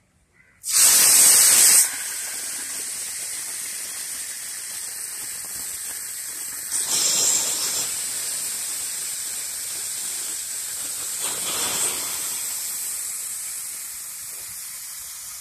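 Masala-coated sea fish frying in hot oil on a black iron griddle. A loud hiss about a second in as the fish hits the oil, then a steady sizzle with louder surges about seven and eleven seconds in.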